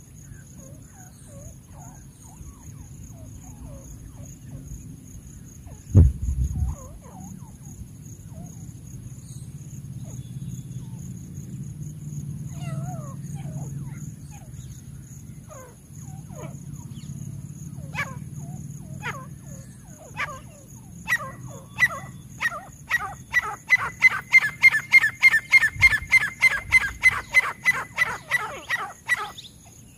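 Grey francolin calling: scattered short notes, then a fast run of sharp, repeated notes, about three or four a second, that grows louder over the last several seconds. A single loud thump about six seconds in.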